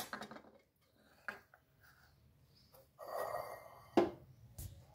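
A few faint clicks and knocks of kitchen utensils around an iron tawa, with a brief soft rustle about three seconds in.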